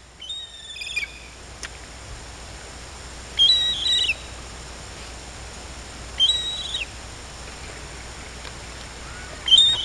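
Gull screaming: four high, harsh calls about three seconds apart, each a held note that drops in pitch at its end.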